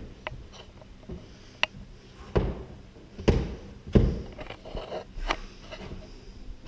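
Climbing shoes and hands knocking against plastic holds and the wooden wall as a boulderer moves: a handful of dull thumps and taps, roughly a second apart.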